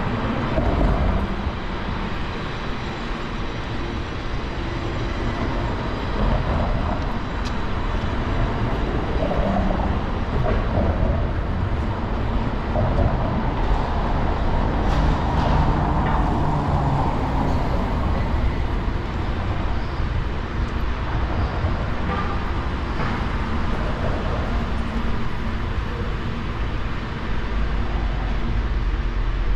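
Street traffic: a steady low rumble of passing vehicles, swelling briefly about halfway through.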